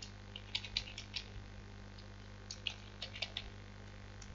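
Computer keyboard typing: faint keystrokes in two short runs, about half a second in and again around two and a half seconds in, over a steady low hum.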